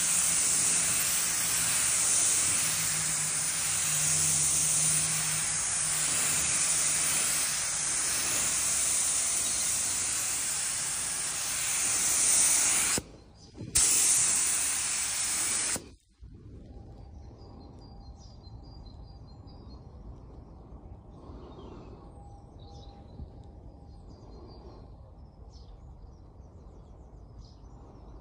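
Paint being sprayed onto the lures: a loud, steady spraying hiss that breaks off for a moment about halfway through, starts again, and stops for good a little later. It leaves a faint background with scattered small high chirps.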